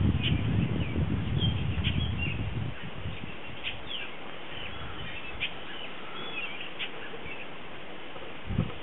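Small birds chirping in short calls throughout, over wind buffeting the microphone for the first few seconds that then eases off. A short low thump near the end.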